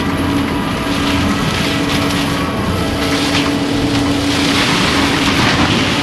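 Prinoth M450s-1600 skid steer mulcher running under load on a compact track loader: the diesel engine and spinning drum keep up a steady hum while swells of grinding noise come and go as the teeth chew into brush, loudest about four to five seconds in.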